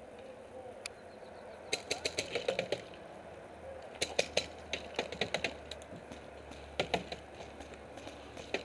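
Paintball markers firing in rapid strings: two bursts of about ten quick sharp pops each, about two and four seconds in, and a couple more shots near the end.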